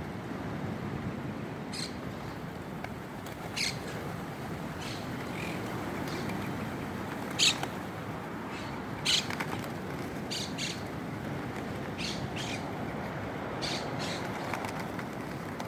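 Birds gathering for seed, with short, scattered chirps and wing flutters over a steady outdoor rush; two sharper, louder calls come about halfway through.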